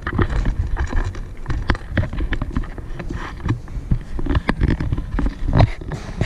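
Footsteps on a wooden floor, a series of irregular knocks, mixed with rubbing and bumping from a handheld camera as it is carried.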